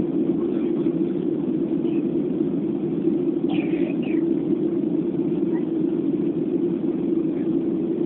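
Steady cabin drone of a Boeing 737-800 airliner in flight: jet engines and airflow past the fuselage make a deep, even rush that does not change.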